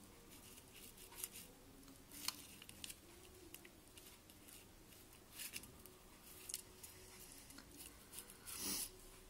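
Felt-tip marker scratching faintly over felt as it traces around a paper template, in short separate strokes, with a louder rustle near the end.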